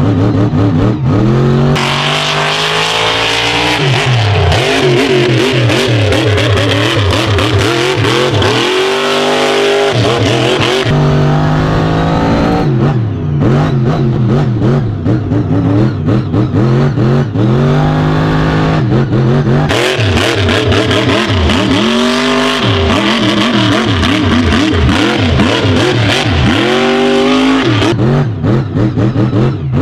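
A 1520-horsepower mega truck's engine, heard from inside the cab, revving hard in repeated rising sweeps and dropping back between them as it runs a dirt track. A steady hiss rides over the engine during the longer pulls.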